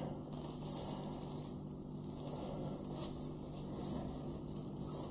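Faint handling noise, soft irregular rustles, as gloved hands bring a small file up to the bow of a plastic ship model.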